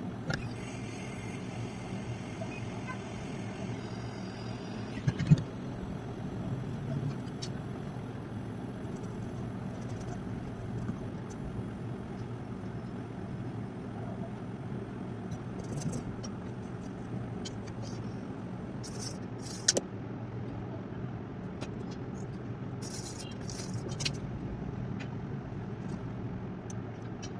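Steady low background noise with a few short clicks.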